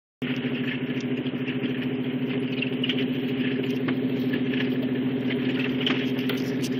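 Truck engine running steadily as the truck drives a muddy dirt trail, heard from inside the cab, with scattered light knocks and clicks.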